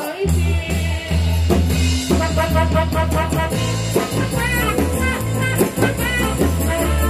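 A live band plays a song intro: a drum kit and bass keep a steady beat under a saxophone and keyboard melody.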